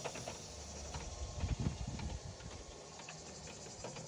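Cicadas chirring steadily with a fine pulsing texture, with a few low thumps and clicks of phone handling on the microphone around the middle.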